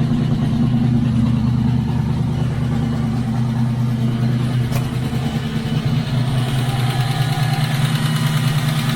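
Pushrod car engine with link-bar lifters idling steadily, not yet warm, with the lifters ticking lightly; that tick is what such lifters do and won't go away, only quieten as the oil works in. One sharp click about halfway through.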